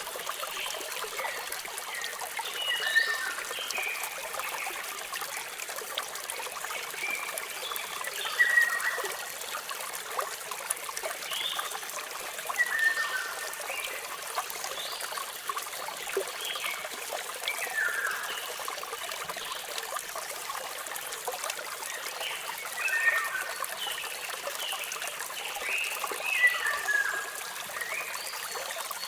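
Small waterfall trickling and splashing steadily, with birds chirping in short calls every few seconds that cluster near the end.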